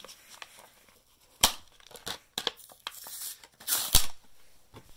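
Hot Wheels cardboard blister card being torn open by hand: card ripping and the plastic blister crackling and crinkling, with sharp snaps about a second and a half in and again about four seconds in.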